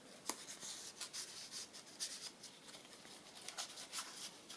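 Faint paper rustling and rubbing: paper tags and cards being handled and slid into a paper pocket of a handmade journal, with one light tap just after the start.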